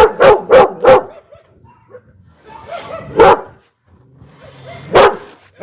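Dog barking: a rapid run of four barks in the first second, then a longer bark about three seconds in and a single bark near the end.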